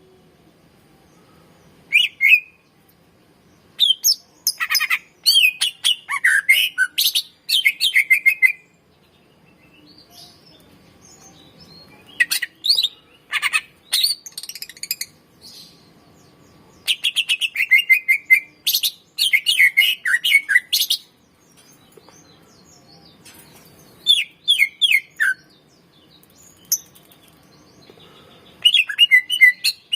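Greater green leafbird (cucak ijo) singing: loud phrases of rapid, varied chirps, trills and sweeping whistles, each lasting a second or few, broken by short pauses, with the longest runs about five seconds in and again near the middle.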